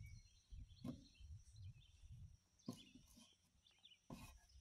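Faint knocks and scrapes from a short board of rough-cut lumber being worked into place between the rafters under an eave: three short knocks, about a second in, near three seconds and after four seconds. Birds chirp faintly in the background.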